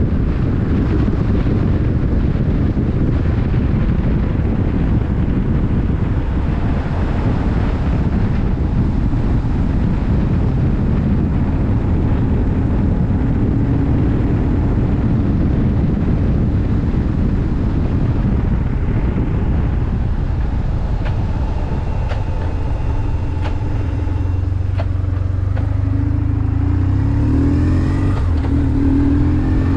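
BMW R 1150 R's air-cooled boxer twin running on the road. For about the first twenty seconds it is mixed with a heavy rushing noise; after that the engine's note comes through more clearly, and near the end its pitch rises as the bike accelerates.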